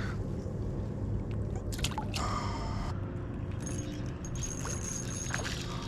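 Water sloshing and gurgling at the shoreline over a steady low rumble, with a few sharp clicks.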